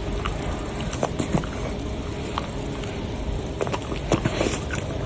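Shiba Inu puppy licking and chewing a piece of food held between its paws: scattered small wet clicks and smacks over a steady background hiss.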